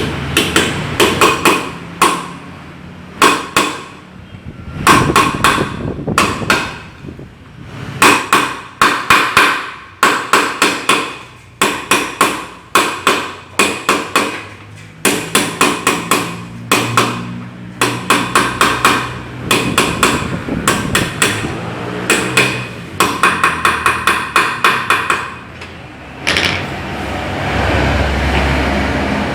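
Hammer blows on metal in quick runs of about four to five a second, with short pauses between runs and a ringing note after each blow: bearings being driven out of or into a Suzuki Nex scooter's CVT gearbox. The blows stop about three seconds before the end, leaving a steady rushing noise.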